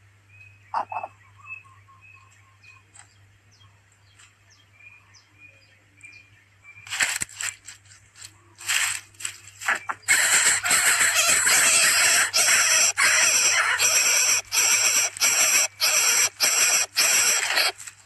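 Dry grass and leaves of a bird's nest rustling and crackling, in a few bursts about seven seconds in and then loud and continuous from about ten seconds in. Before that, a faint high chirp repeats at an even pace.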